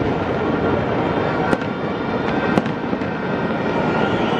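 Fireworks display: continuous dense crackling and popping, with two sharper bangs about a second apart near the middle.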